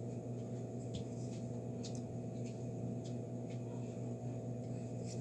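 A steady low electrical hum with a few faint, light ticks.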